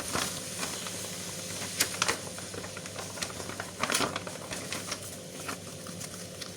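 Paper user manual being leafed through and handled: a soft rustle with a few sharper crackles, the loudest about 2 and 4 seconds in.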